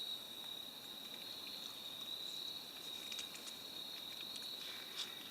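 A chorus of insects, heard as a steady high trill, with a few faint light clicks in the second half.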